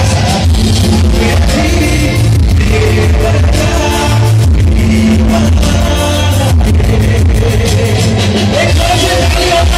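Live band playing a rock-style song through a loud PA system, a singer's voice carrying the melody over drums, keyboard and a heavy bass.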